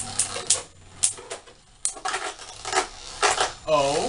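Two Beyblade Burst spinning tops, Judgement Joker and Auric Alchem, spinning in a plastic stadium and colliding with repeated sharp clacks and rattles at irregular intervals.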